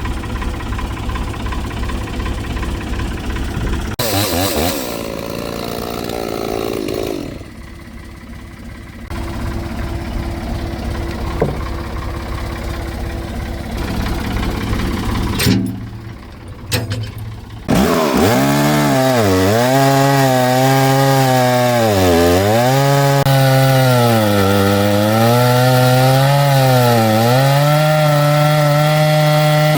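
Chainsaw in an Alaskan mill ripping a log lengthwise. The first half breaks off abruptly several times. From about halfway the engine holds a steady high pitch that sags and recovers every couple of seconds as it loads up in the cut.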